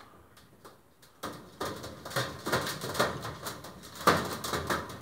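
Racing pigeons moving about in a wire cage: a run of irregular knocks and rustles from their feet and wings against the wire and wooden floor, the loudest knock about four seconds in.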